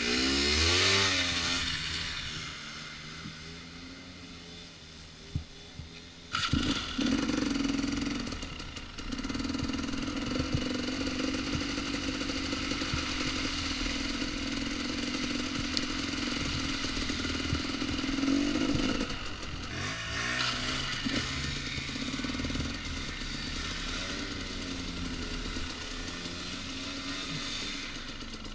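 Two-stroke dirt bike engine, a 2014 KTM 250 XC-W, revving up in the first second and easing off. It picks up sharply about six seconds in and runs steadily under throttle, with another rise and fall in revs around nineteen seconds in.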